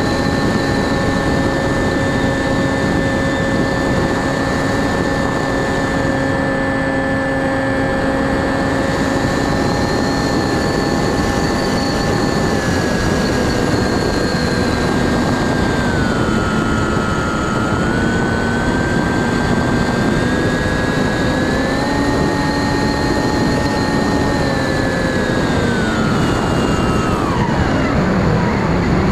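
Brushless electric motor and pusher propeller of a Bixler 2 RC plane heard from its onboard camera: a steady whine over a rush of wind, its pitch dipping and rising with the throttle in the middle, then falling steeply near the end as the throttle is pulled back.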